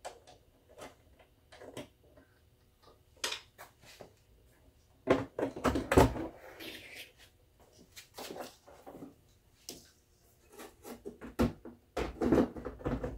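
Handling noise of a metal charging panel being taken out of a plastic tool-case lid and set into another plastic case: scattered clicks and knocks, heaviest about five to six seconds in and again near the end.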